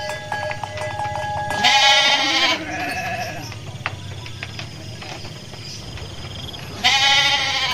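Sheep bleating: a loud quavering bleat about a second and a half in and another near the end, with fainter bleats from other sheep between.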